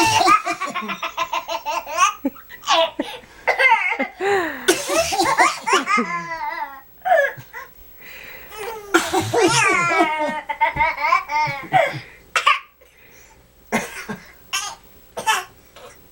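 Baby belly-laughing in long, squealing bursts that rise and fall in pitch, set off by playful fake coughs; several short coughs come in quick succession near the end.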